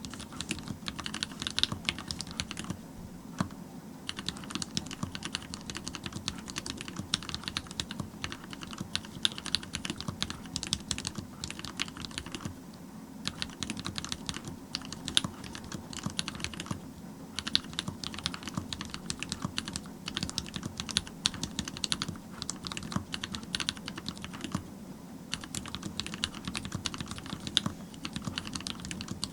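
Fast continuous typing on a mechanical keyboard with Cherry MX Black linear switches on custom 70 g springs, a brass plate and Leopold PBT keycaps: dense clacking keystrokes in bursts, with brief pauses a few times.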